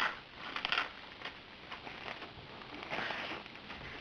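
Faint rustling and handling noises, a few soft crinkles and scrapes, as a packaged tablet case is handled.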